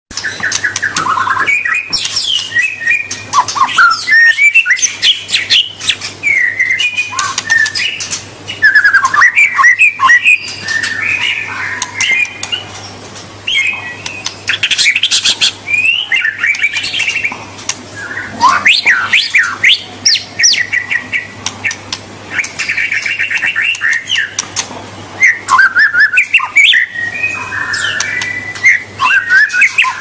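White-rumped shama singing a continuous, varied song: whistled phrases that glide up and down, mixed with rapid chattering trills.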